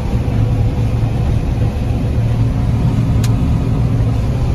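Old combine harvester's engine and threshing machinery running steadily under load while cutting soybeans, a low, even hum heard from inside the cab. A single short click about three seconds in.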